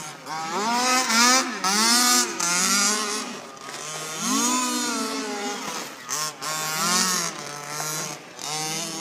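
The rebuilt baja's small engine revving hard and easing off over and over, its pitch swooping up and down about once a second as it accelerates and slows during a test run.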